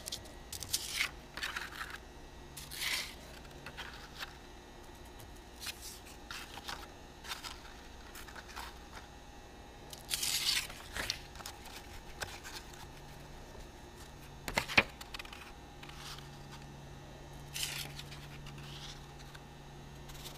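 Sheets of brown paper handled on a wooden workbench: short, scattered rustles and slides of paper. A single sharp knock about fifteen seconds in is the loudest sound.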